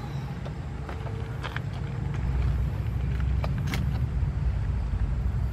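Car engine idling: a low steady rumble that grows a little louder about two seconds in, with a few light clicks over it.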